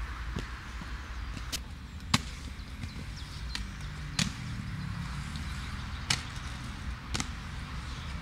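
Scattered sharp clacks of inline skates striking the concrete and coping of a skate bowl, about six in all, the loudest about two seconds in, over a steady low rumble.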